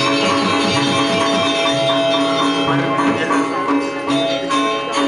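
Balinese gamelan playing: bronze metallophones and gongs ringing in sustained tones under quick, repeated metal strikes.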